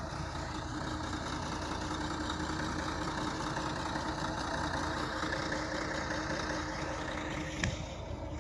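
Heavy diesel trucks idling steadily, a constant engine drone with one steady tone running through it; a short sharp click near the end.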